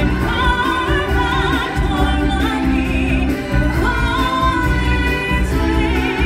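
Stage-show music: a singer holding long notes with vibrato over full backing music with a steady bass line.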